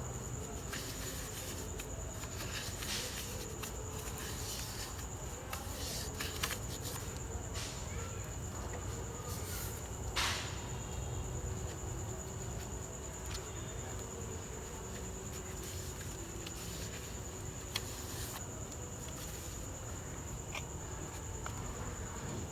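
Faint handling sounds of wiping brake dust out of a motorcycle's rear brake drum hub: light scrapes and occasional small knocks, over a steady high-pitched whine.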